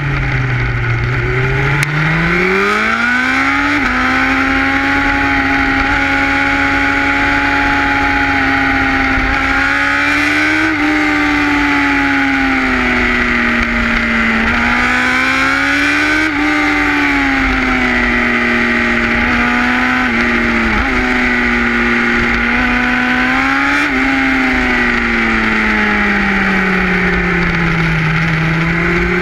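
Sport motorcycle engine running at speed through a carbon-fibre slip-on exhaust. The note climbs in the first few seconds, then rises and falls with the throttle through the bends, with a few quick dips. Steady wind and road rush underneath.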